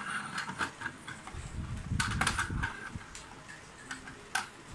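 Clicks and knocks of plastic Rail King toy train cars being handled and fitted together on a wooden table, with a brief rumble about two seconds in and a sharp knock near the end.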